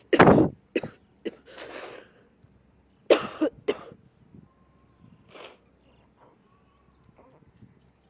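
A person close to the microphone coughing in several short, sharp bursts, with gasping breaths between them. The bursts come in the first four seconds, with one more about five and a half seconds in.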